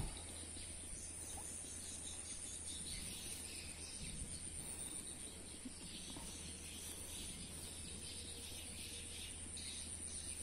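Insects droning steadily at a high pitch, with faint scattered chirps and a low rumble underneath. There is a soft knock at the start and another about four seconds in.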